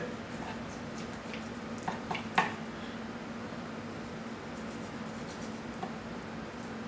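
A large kitchen knife trimming fat from a raw brisket on a wooden cutting board: faint slicing, with a few light knocks of the blade on the board about two seconds in, over a steady low hum.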